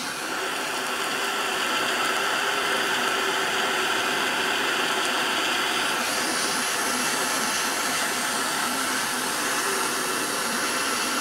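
Steady hiss of a small micro torch flame heating a brass joint for soft soldering, turning a little brighter about halfway through.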